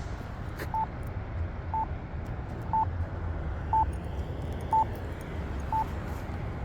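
Accessible pedestrian signal locator tone from a Campbell push button with Wilcox speakers: a short, clear beep repeating once a second, marking the button's location during the wait phase. There is a steady low traffic rumble underneath.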